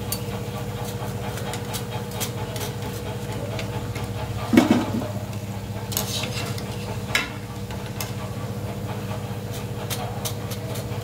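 Pakoras sizzling in hot mustard oil in a metal kadhai while a wire-mesh skimmer clinks and scrapes against the pan, lifting them out. There is a louder knock about four and a half seconds in, over a steady low hum.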